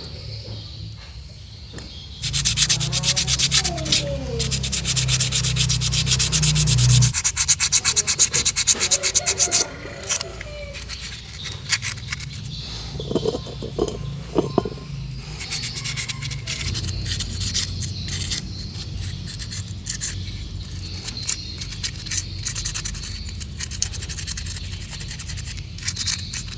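Fast scrubbing and rubbing strokes on the parts of a rusty old carburetor being cleaned. The strokes are dense and loud for several seconds in the first third, then lighter and intermittent later on.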